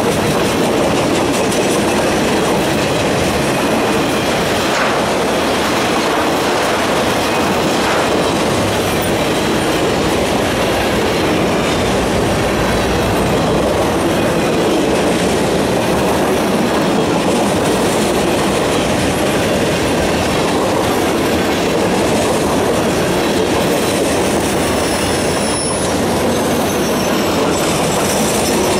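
Freight cars rolling past close by: a steady, loud rumble and clatter of steel wheels on rail, with faint high wheel squeal near the end.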